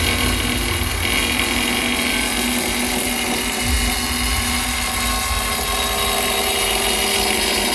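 Power tool running steadily while cutting ceramic tile.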